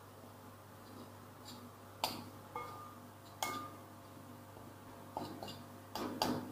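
Kitchenware being handled: about six sharp knocks and clinks of bowls and utensils spread through a few seconds, two of them ringing briefly like metal or glass set down.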